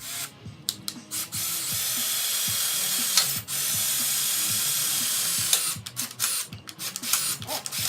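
Hand drill boring dry through metal with a new 3/16-inch titanium nitride bit and no cutting oil: a steady high-pitched cutting whir in two runs of about two seconds each, split by a short pause. A few clicks come before it, and scattered clicks and knocks follow once the drilling stops.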